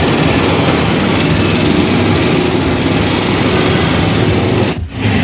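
Steady street traffic noise with small engines running close by. The sound drops out for a moment near the end.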